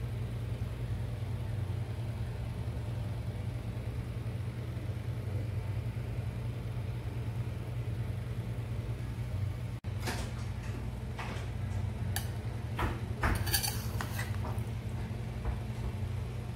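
A steady low hum, then, from about ten seconds in, a run of sharp clinks and scrapes of a metal spatula and dishes as pizza slices are lifted and served.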